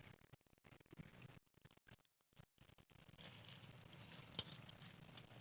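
Faint, scattered clinks and light scraping of a utensil in a cooking pan, becoming busier from about three seconds in.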